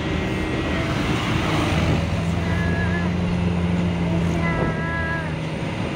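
Engine of a small old vehicle running steadily under way, a low drone heard from inside the cab, with road and wind noise. Two brief higher-pitched sounds come over it, around the middle and near the end.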